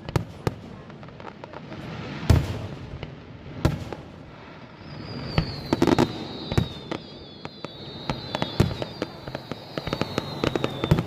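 Fireworks going off: scattered sharp bangs and crackles, with a loud boom a little over two seconds in and a cluster of bangs around six seconds. From about five seconds in, a high wavering whistle runs on, falling slowly, until nearly the end.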